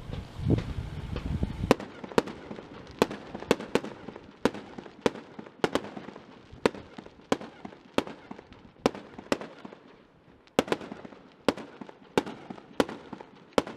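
Fireworks display: a string of sharp bangs from shells bursting overhead, about two a second, with a short pause about ten seconds in before they start again.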